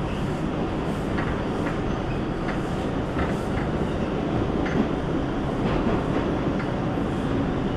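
New York City subway train (5 express) running along the track, heard from inside the car: a steady rumble with irregular clicks of the wheels over the rail joints.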